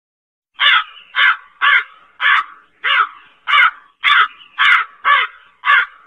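Crow cawing: a series of about ten caws in quick succession, roughly two a second, starting about half a second in.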